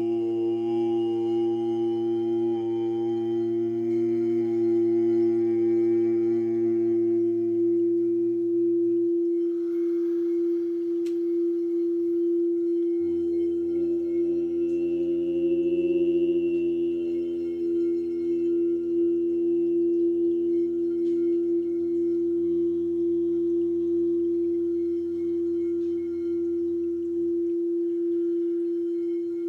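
Low male voice chanting long held notes, the sound-healing syllables LAM and Om, over a steady, pure drone tone. The first chant holds to about nine seconds in; a second begins a few seconds later and holds until near the end, while the drone carries on unbroken.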